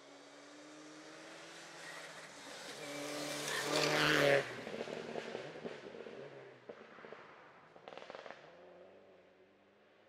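Rally car passing at speed: its engine note grows louder to a peak about four seconds in, cuts off abruptly, then fades as the car drives away, with a short noisy burst of clicks about eight seconds in.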